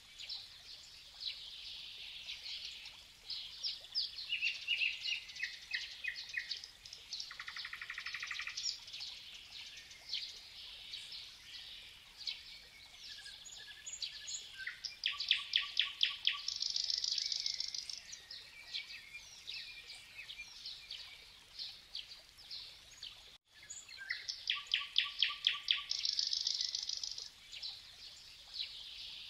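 Several songbirds singing, with short chirps and trills overlapping and one bird repeating the same trilled song phrase about every ten seconds, over faint outdoor background noise.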